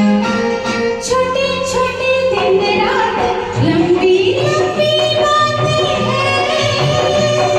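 Hindi film song music: a melodic lead line with steady accompaniment.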